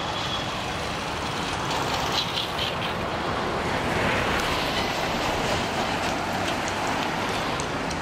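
Jet engines of a Boeing 787-9 Dreamliner heard from a distance as the airliner moves along the runway: a steady rushing rumble that swells about four seconds in.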